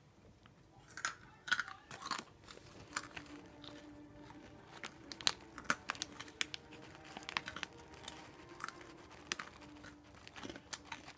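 Someone chewing a mouthful of Hot Cheetos close to the microphone: crisp, irregular crunches beginning about a second in.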